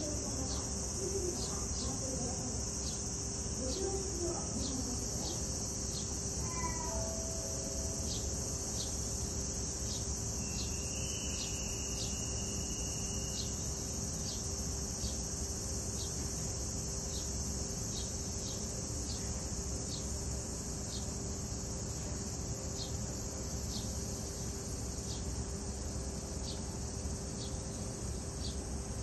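Insects singing in a steady high, hissing drone, with a short chirp repeating regularly a little under once a second. A low steady hum runs underneath.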